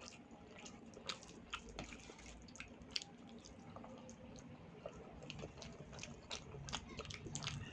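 Close-up wet chewing and lip smacks of a person eating soft, saucy food like rice with dal, in irregular soft clicks and squelches.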